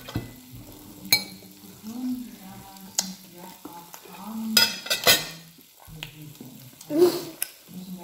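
Knife and fork clinking and scraping on a dinner plate while a steak is cut and eaten, with a few sharp clicks and a louder scrape near the end, over a low steady hum.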